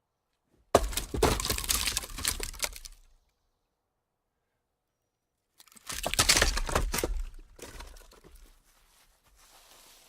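Light logs rolling down a small slope and clattering against each other, twice: a burst of dense knocking about a second in that lasts two to three seconds, then a second run of clatter around six seconds in that dies away.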